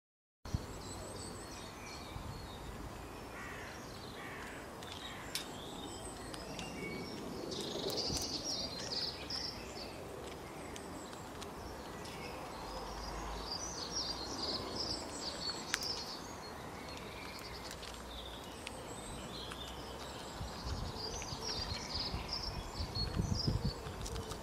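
Wild birds calling outdoors: clusters of short, high chirps come and go over a steady background hiss and low rumble.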